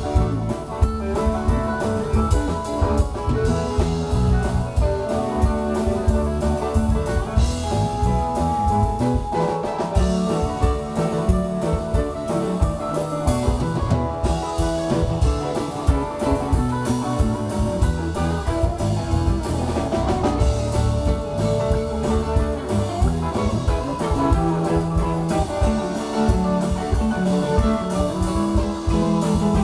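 Live rock band playing an instrumental jam passage: electric guitar (a Fender Stratocaster) over electric bass, drum kit and keyboards, with no singing.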